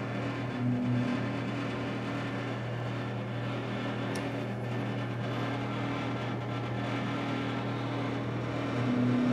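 60 W CO2 laser engraver running a test engraving on its rotary attachment: a steady machine hum, with a brief higher tone from the moving head and rotary about a second in and again near the end.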